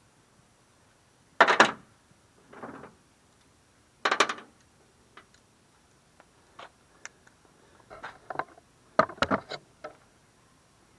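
Hand tools and small metal carburetor parts clinking and clattering during disassembly of a push-mower carburetor. There are two louder clatters, about a second and a half in and about four seconds in, then scattered light ticks and a few more knocks near the end.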